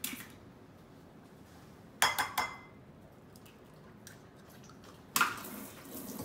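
An egg cracked on the rim of a ceramic dish: two sharp taps about two seconds in, the first with a short ring, then the shell pulled apart over the dish. A louder clatter comes about five seconds in.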